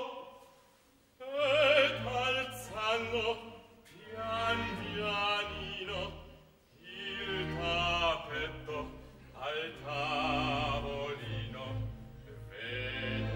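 Operatic singing with wide vibrato over a live orchestra, a classical-era opera ensemble. About a second in, the orchestra's low strings and the voices come in together after a brief hush, and the singing goes on in short phrases.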